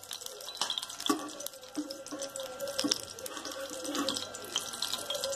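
Ghee sizzling on a hot tawa, foaming and bubbling with a dense, fine crackle of small pops.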